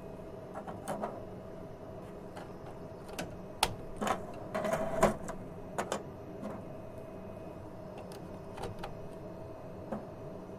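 Plastic clicks and knocks of HP DesignJet printheads being pushed and seated into the carriage slots, several scattered strikes with the busiest cluster about halfway through, over a steady hum.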